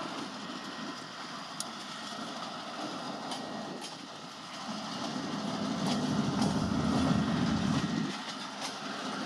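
Diesel freight train approaching slowly. The locomotive's engine rumble grows louder about five seconds in and eases near the end, over the steady rolling noise of the train with scattered wheel clicks.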